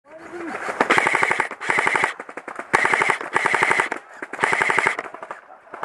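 Airsoft electric rifles firing full-auto: several bursts of rapid clicking shots, each about a second long, with short pauses between them.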